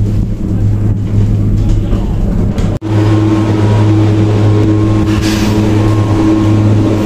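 Steady low mechanical hum of a moving Ngong Ping 360 cable car gondola, heard from inside the cabin. It cuts out for an instant about three seconds in, then returns as a steadier pitched drone.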